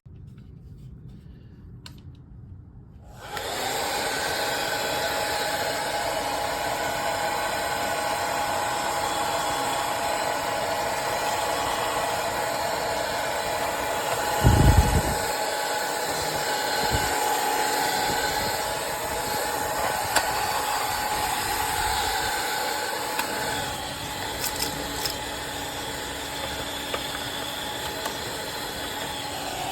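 Small cordless mini vacuum cleaner's fan motor switching on about three seconds in and then running with a steady whir, with a couple of low bumps near the middle.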